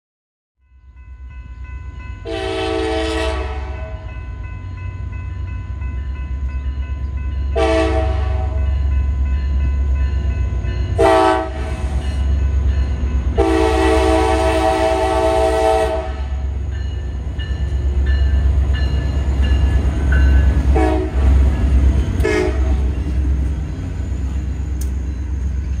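CSX passenger train's diesel locomotive horn sounding for a grade crossing: a long blast, two shorter ones, then another long blast, followed near the end by two brief toots. Underneath runs the steady low rumble of the locomotives and cars as the train approaches and passes.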